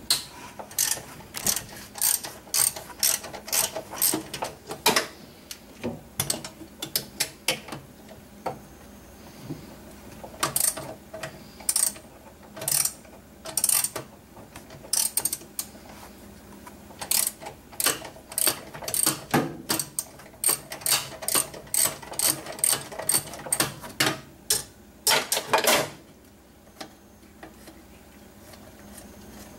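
Hand ratchet clicking in quick runs of strokes with short pauses as a large oil cooler bolt is backed out. The clicking stops about four seconds before the end.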